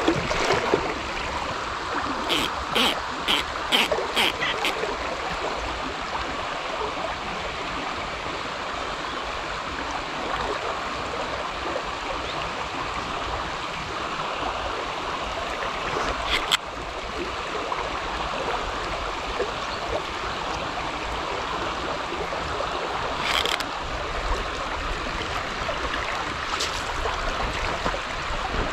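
River water running steadily. A quick run of about six sharp clicks comes a couple of seconds in, and single sharp clicks follow later.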